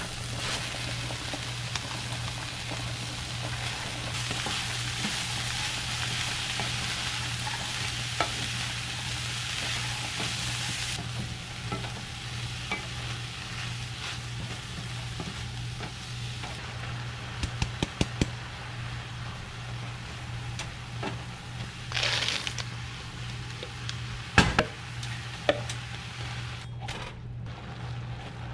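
Diced onion and vegetables sizzling in a hot skillet while a wooden spatula stirs and scrapes them around the pan; the sizzle is strongest in the first third, then settles lower. A few knocks and clatters come in the last third, the loudest about two-thirds through, over a steady low hum.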